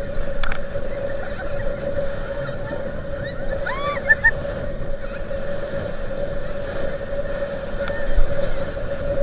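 Motorboat engine running with a steady hum over a low rush of wind and water, with a few short rising-and-falling calls about four seconds in.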